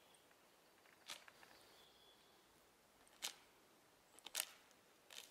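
Near silence broken by a handful of short, sharp clicks spread through it.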